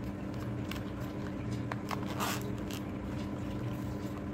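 Packaging of a small microphone being opened by hand: faint rustling and scattered light clicks, the largest rustle about two seconds in, over a steady low hum.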